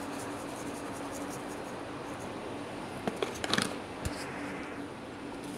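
An instant yeast sachet being handled and cut open: a short cluster of crinkles and snips about three seconds in and a single click just after, over a steady low hum.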